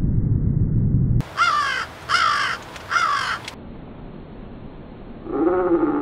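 Low rumbling noise for the first second, then a crow caws three times, each caw about half a second long. About five seconds in, a much lower, drawn-out call begins: a crow's caw slowed down.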